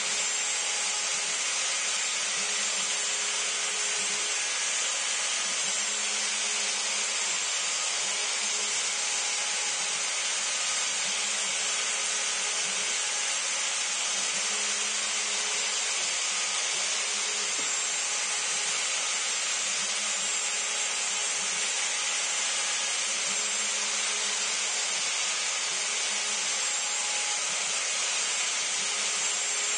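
CNC router spindle running at high speed while its bit cuts grooves into a cedar board: a steady high whine over a continuous rasping cutting noise.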